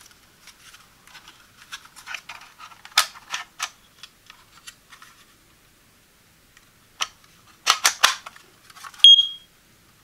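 Plastic clicks and rattles from handling a First Alert BRK 3120B smoke alarm, with sharp snaps as its AA battery drawer is opened and shut. About nine seconds in, the alarm gives one short high beep as the backup batteries connect.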